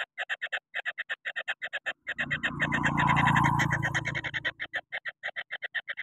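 Kingfisher nestling calling in a fast, even series of short, harsh notes, about seven a second: the agitated calling of a chick that is easily angered. For about two seconds in the middle, a louder low rumbling noise sits over the calls.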